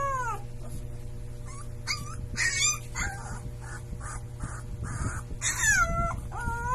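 Husky puppy howling: a drawn-out howl falls in pitch and trails off just after the start, then a few short yips and cries, and a new howl begins near the end.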